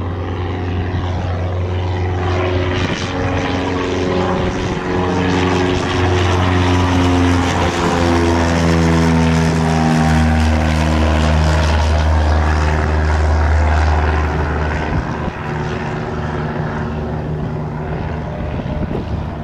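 Single-engine Cessna propeller plane flying past at go-around power, a steady engine drone. It grows loudest midway, and its pitch drops gradually as the plane passes overhead and climbs away.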